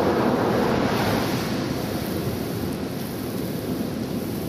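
Thunderstorm: a low rumble of thunder dying away over the first few seconds under steady rain and wind noise.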